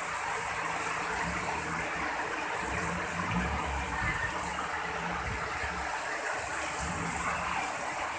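Steady rushing of muddy floodwater flowing over ground, with falling rain.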